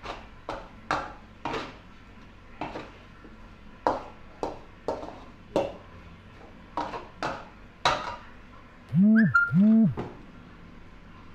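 A metal spatula scrapes and knocks against a steel wok while stir-frying rice, about two strokes a second. About nine seconds in come two loud, short calls, each rising and falling in pitch.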